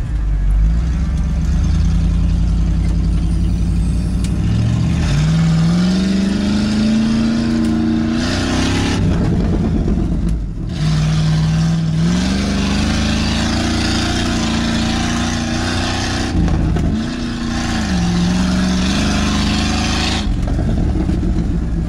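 1988 Ford F-250 pickup's engine heard from inside the cab, revving as the truck accelerates through snow: the engine note climbs, drops about halfway through, then climbs again with a brief dip later on. A rushing hiss rides over it whenever the truck is pulling hard.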